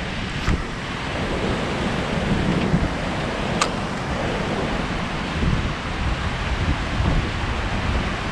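Steady rush of churning water pouring out below a spillway, with wind buffeting the microphone. A sharp click about three and a half seconds in.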